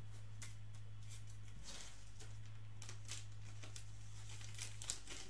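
Light, scattered rustling and scraping of trading cards and paper being handled, with a few small ticks near the end, over a steady low electrical hum.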